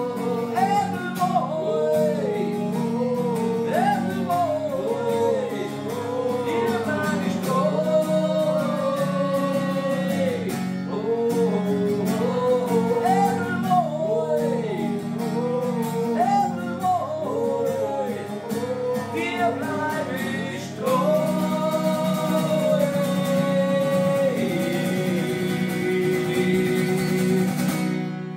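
Music: a song with a sung melody over guitar and a steady band backing, which stops near the end.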